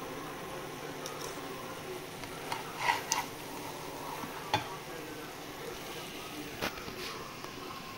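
Tomatoes and eggs sizzling in a frying pan as a slotted metal spatula stirs them, with a few sharp scrapes and taps of the spatula on the pan, loudest about three seconds in.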